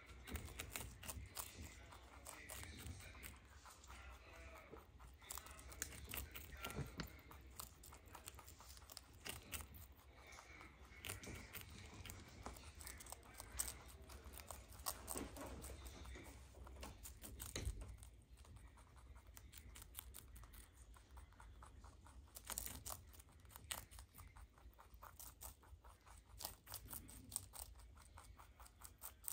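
Two baby rabbits chewing cabbage leaves: a fast, faint run of crunching clicks.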